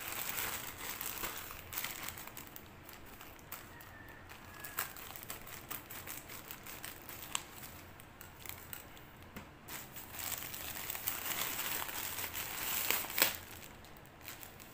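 Thin plastic courier mailer pouch being cut open and handled, crinkling and crackling in a run of rustles that grow louder near the start and again about ten seconds in, with one sharp crackle about thirteen seconds in.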